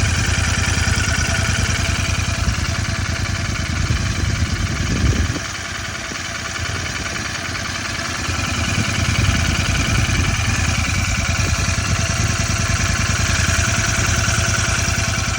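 Royal Enfield Continental GT650's 648 cc parallel-twin engine running with a tak-tak-tak ticking, which the owner suspects is tappet noise. It goes quieter for a few seconds about five seconds in, then picks up again.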